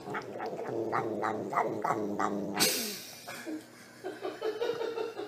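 A domestic cat vocalising in a strange, drawn-out yowl that wavers with a regular pulsing. About two and a half seconds in there is a brief noisy burst, followed by a run of short, quick calls.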